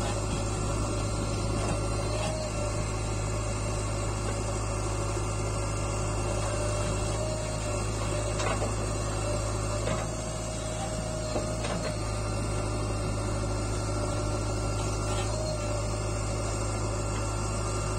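JCB backhoe loader's diesel engine running steadily under load while the backhoe arm digs soil and swings to dump it into a tipper truck, with a few faint knocks from the working bucket and arm.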